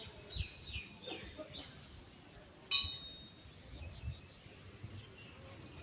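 Bird calls: a quick run of four short, falling chirps in the first second and a half, and a few fainter chirps later. About three seconds in comes a single short metallic clink that rings on briefly.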